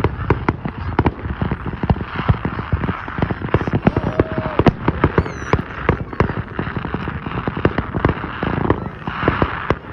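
Fireworks going off: a dense run of sharp bangs and crackling pops, several a second.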